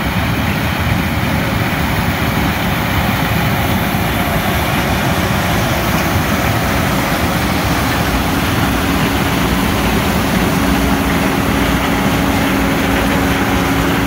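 John Deere combine harvesting corn, its engine and threshing machinery running steadily as it comes toward and alongside; a steady whine joins in over the last few seconds as it draws near.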